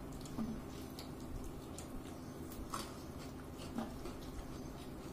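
Quiet eating sounds from a mukbang meal: a few faint clicks and mouth noises over a low, steady background hum.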